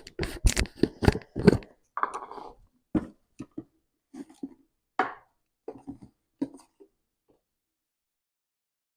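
Hands kneading sticky whole-wheat poori dough with added flour: a quick run of slaps and knocks for the first second and a half, then scattered soft thumps that stop about seven seconds in.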